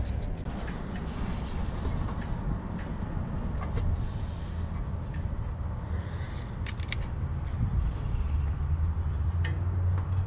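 A steady low hum, with a few faint clicks scattered through it.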